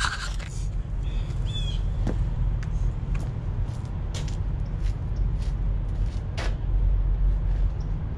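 Steady low rumble of idling diesel truck engines, with a few scattered clicks and knocks and a brief high squawk about one and a half seconds in.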